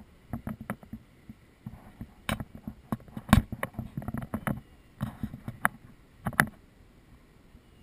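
Irregular knocks, clicks and rustling close to the microphone, the loudest about three and a half seconds in, stopping after about six and a half seconds: handling noise on the action camera's housing as it is moved.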